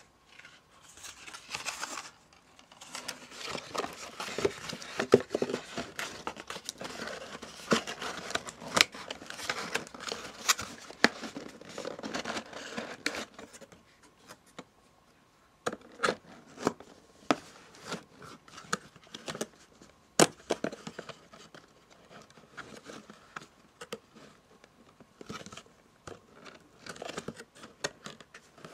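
Paper and cardboard packaging crinkled and rustled close to the microphone for about the first half. After a short pause, scattered sharp taps and clicks follow.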